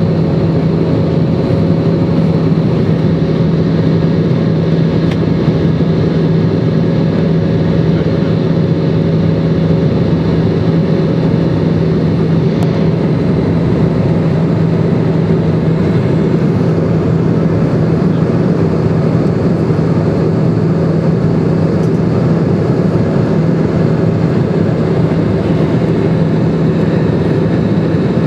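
Cabin noise inside an Airbus A320 climbing after takeoff: the steady drone of the jet engines and rushing airflow, with a steady low hum underneath.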